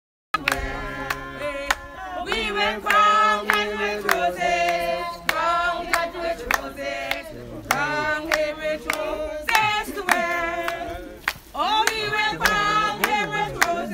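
A group of voices singing together, men and women, with a steady beat of handclaps; it cuts in suddenly just after the start.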